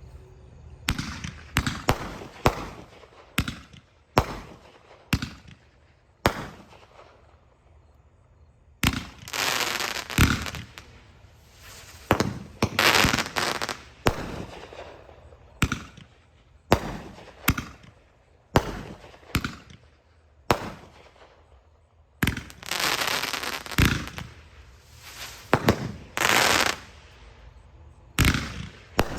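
A 200-gram consumer fireworks cake firing a long string of shots: sharp bangs one or two a second, with several longer stretches of crackling tails lasting a few seconds each.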